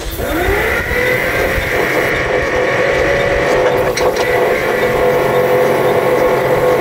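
Electric starter motor of a Caterpillar D8 bulldozer, bridged with a screwdriver on its 24-volt battery system, cranking the diesel engine over without it firing. The whine rises as the starter spins up in the first half second, then holds steady, with a short click about four seconds in.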